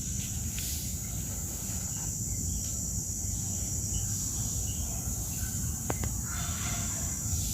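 Steady high-pitched insect chorus over a low background rumble, with one faint click about six seconds in.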